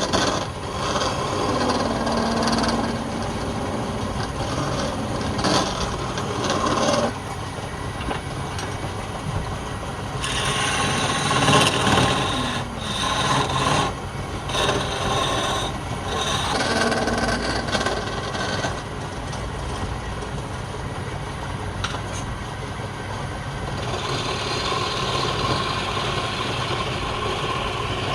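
Woodworking machine running steadily while wood is worked, with a changing scraping and grinding noise.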